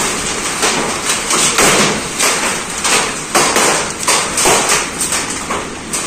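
Repeated dull strikes or thuds, about two to three a second, in a steady working rhythm.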